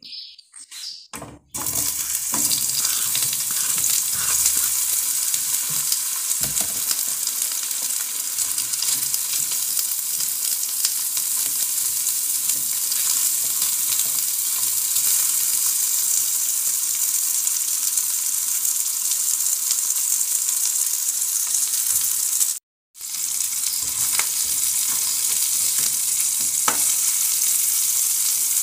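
Sliced calabresa sausage sizzling in hot oil in an aluminium frying pan. The sizzle starts about a second and a half in, when the slices go into the pan, and runs steadily with the occasional scrape of a fork turning them. It cuts out for an instant about two-thirds of the way through.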